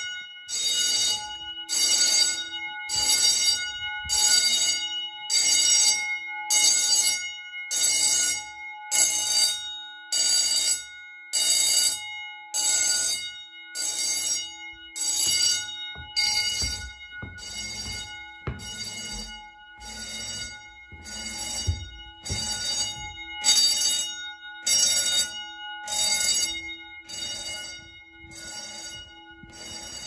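Edwards 439D fire alarm bells ringing in the pulsed on-off pattern of an activated alarm, about one and a half strokes a second, the gongs ringing on between pulses. Footsteps thud on stairs about halfway through.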